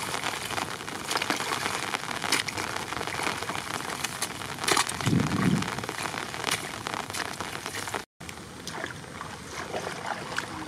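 Water splashing and trickling, with many small crackles, as a long-handled spade works mud in a shallow flooded channel. There is a dull thud about five seconds in. The sound breaks off for an instant a little past eight seconds and is quieter after.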